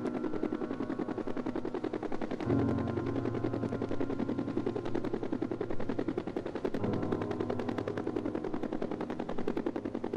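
Two-bladed Huey-type helicopter hovering, its main rotor giving a rapid, even chopping blade slap over a steady engine drone. The lower drone swells for a few seconds midway.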